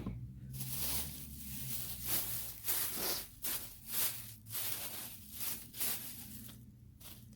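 A bag holding freshly harvested potatoes rustling and crinkling as it is handled and opened, in a run of irregular scraping rustles about two a second.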